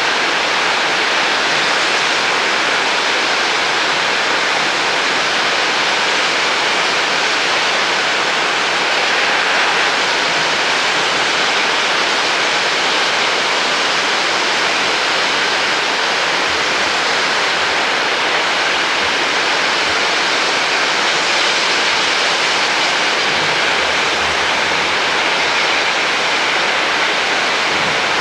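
Steam locomotive blowing off at its safety valves: a loud, steady hiss of escaping steam.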